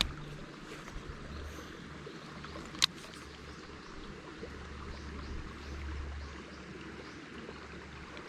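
Steady rush of a small river's flowing water, with wind rumbling on the microphone that swells in the middle, and a single sharp click about three seconds in.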